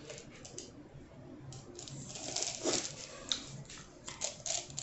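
Soft sucking and slurping at a frozen Kool-Aid ice held in a small plastic cup at the mouth, starting about a second and a half in, with a few small clicks of the cup near the end.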